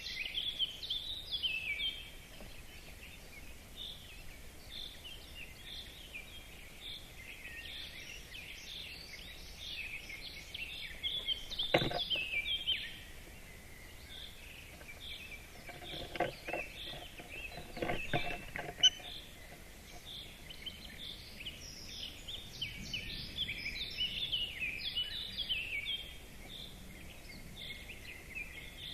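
Dense chorus of small songbirds: many overlapping chirps and song phrases. A sharp knock comes about twelve seconds in, and a few more knocks and short rough sounds follow a few seconds later.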